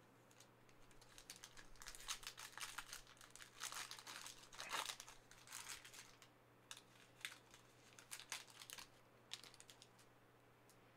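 Wrapper of a Panini Prizm trading-card pack crinkling and crackling as it is torn open and handled: a faint run of quick crackles, thickest in the first half and thinning out toward the end.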